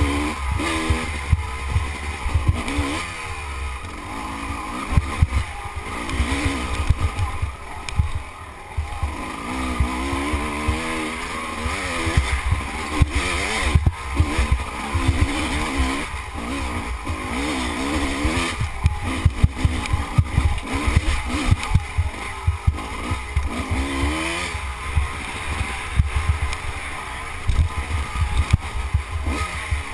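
Dirt bike engine revving up and falling back over and over as the bike climbs a rough, rocky trail, heard from a camera on the bike, with heavy low rumble and many short knocks from the bumpy ground.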